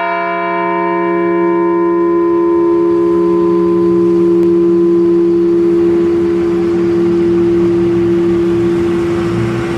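A single struck memorial bell ringing on and slowly fading, tolled for one fallen veteran. Its higher overtones die away within the first few seconds, while a strong low tone and a deeper hum hang on throughout.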